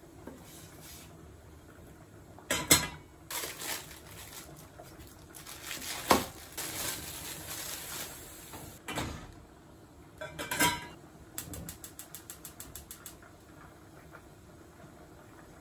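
Knocks and clanks of a stainless steel saucepan and its lid on the stove. Around the middle there is a hiss as the pot boils over onto the hob, and later a quick run of crinkles, like a plastic bag being handled.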